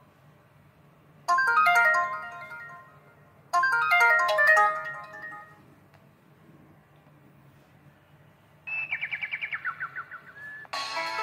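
Samsung synthesized ringtones played on a ZTE Z222 phone's speaker. A short melodic phrase sounds twice with a pause between; after a gap comes a quick warbling trill, and a fuller new melody starts near the end.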